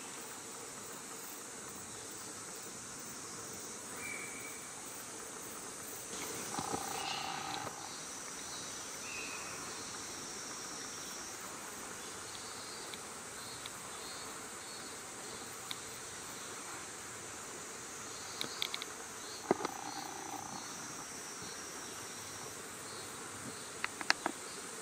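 A steady insect chorus shrills through the forest. Over it, Japanese macaques give tonal coo calls twice, once about seven seconds in and again around twenty seconds. A few sharp clicks come near the end.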